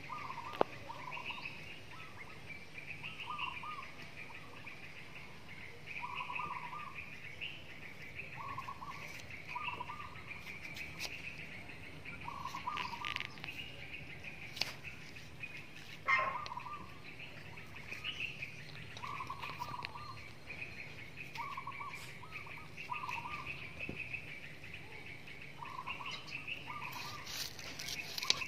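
Birds chirping, with a short call repeated every couple of seconds. A few sharp knocks of a knife on a wooden chopping board come through as a tomato and an onion are sliced, the loudest just past halfway.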